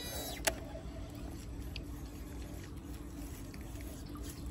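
Tail end of a cast on a Shimano DC baitcasting reel: its electronic brake whine falls in pitch and fades out in the first half second. A single sharp click follows about half a second in, and then only steady low background noise.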